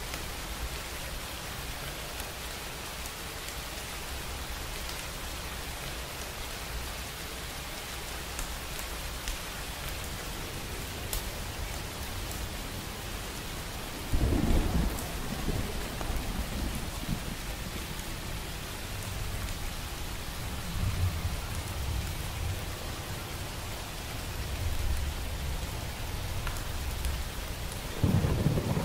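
Steady rain falling, with thunder: a sudden loud rumble breaks in about halfway and rolls on for several seconds, and a second clap comes near the end.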